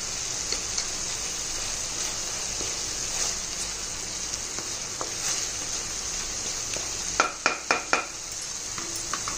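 Onion, ginger-garlic and spice masala sizzling steadily as it fries in a kadhai, stirred and scraped with a wooden spatula. About seven seconds in come four quick knocks with a short ring, the spatula striking the pan.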